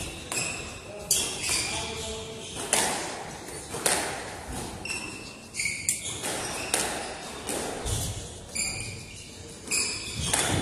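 A squash rally: the ball cracks off rackets and the front wall about once a second, with rubber shoe soles squeaking on the wooden court floor in between, echoing in the enclosed court.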